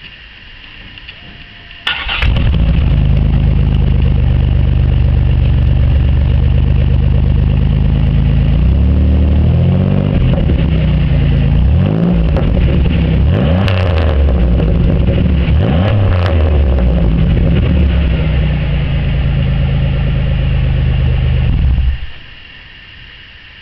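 1998 Buick Park Avenue's 3800 Series II V6 exhaling through a Cherry Bomb glasspack. It cranks and catches about two seconds in, idles steadily, and is blipped up and back down several times in the middle. It settles back to idle and is switched off shortly before the end.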